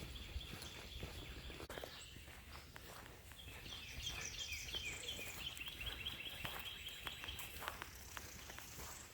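Footsteps along a woodland trail, while a bird sings a quick, repeated series of high chirping notes for about four seconds in the middle.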